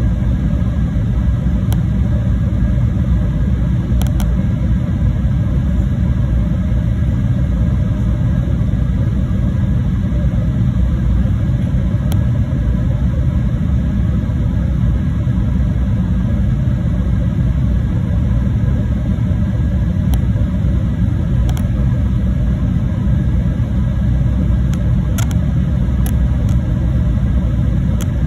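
Steady low rumble of jet engines and rushing air inside an airliner cabin during descent, with a few faint clicks.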